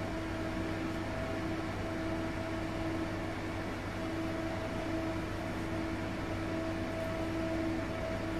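A steady mechanical hum with a faint tone that comes and goes every second or so.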